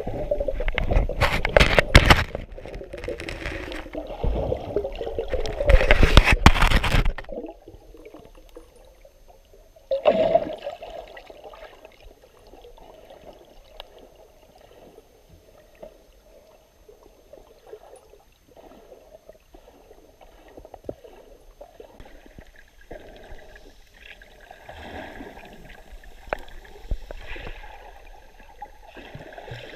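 Water sloshing and gurgling as picked up by a camera held underwater, muffled. Loud for the first several seconds, with another sudden surge about ten seconds in, then fainter with scattered soft knocks.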